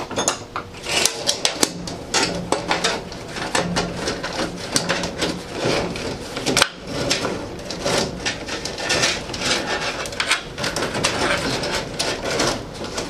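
Rapid clicking, scraping and rattling of metal hardware as the cable and fittings on a box truck's roll-up door spring shaft are worked by hand, with one sharp knock about six and a half seconds in.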